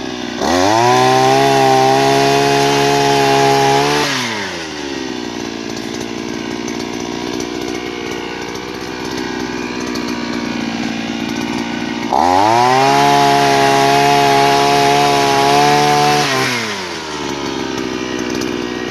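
Cantas 3L motorised oil palm pruner: its small engine idles, and is twice throttled up to full speed for about four seconds. Each time the pitch rises quickly, holds high, then falls back to idle.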